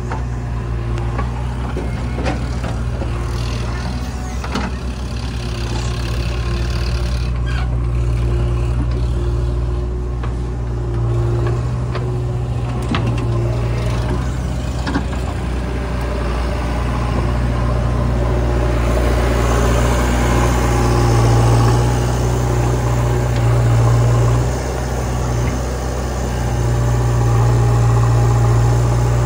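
Diesel engines of a JCB 3DX backhoe loader and a Sonalika tractor running steadily, with scattered sharp knocks from the bucket and soil being loaded in the first half. The engines grow louder in the second half.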